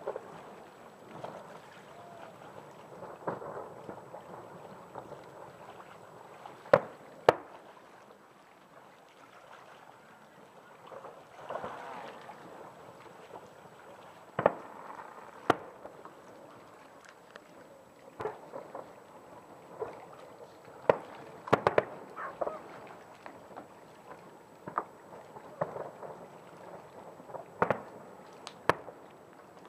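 Distant fireworks shells bursting over a harbour: about a dozen sharp bangs at irregular intervals, some in quick pairs, with a thunder-like echo.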